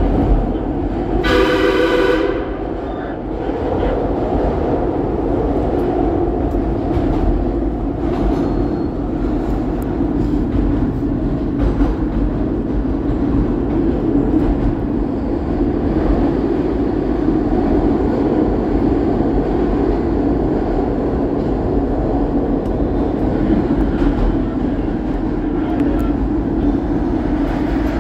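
SEPTA Market-Frankford Line ADtranz M4 subway train running steadily through the tunnel, with wheel-on-rail rumble. A short horn blast sounds about a second in.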